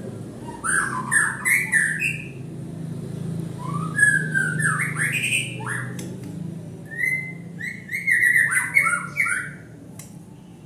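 White-rumped shama singing: three bursts of quick, varied whistled phrases that glide up and down, about a second apart, over a steady low hum.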